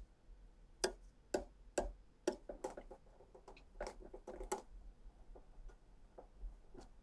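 A small silicone whisk beats egg yolks in a ceramic bowl, its tines clicking and tapping against the bowl in quick, irregular strokes. The clicks come thickest around the fourth second and thin out to a few faint taps near the end.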